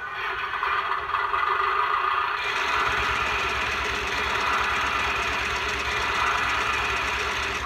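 Electronic engine sound effect from a CAT Heavy Duty Worker toy forklift, played through its small speaker: an engine running steadily, growing fuller about two and a half seconds in.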